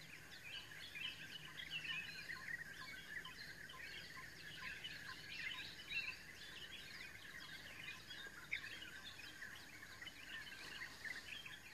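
A dawn chorus of many small birds chirping and twittering together, continuous and faint, over a low steady background hum.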